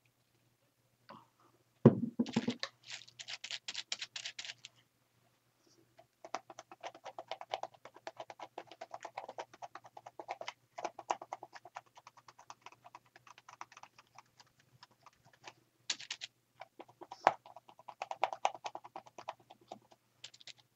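A thump about two seconds in, then long runs of rapid light tapping as white paint is dabbed through a stencil onto a paper journal page.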